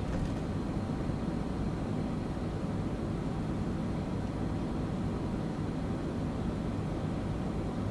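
Steady low rumble and hiss inside a parked car's cabin with the engine idling.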